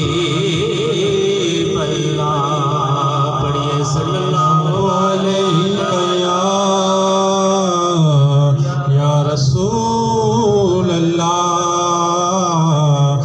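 Men singing a manqabat, a Sufi devotional hymn, into microphones in a chanting style, holding long notes with wavering ornaments and slow pitch glides.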